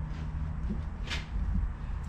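A hand tool working a metal steering part held in a bench vise: a short metallic scrape about a second in, with fainter clicks, over a low steady hum.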